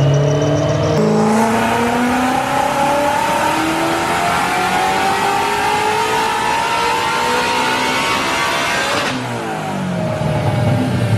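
Ford Mustang engine making a wide-open-throttle pull on a chassis dyno: it goes to full throttle about a second in, rises steadily in pitch for about eight seconds, then lifts off and winds down.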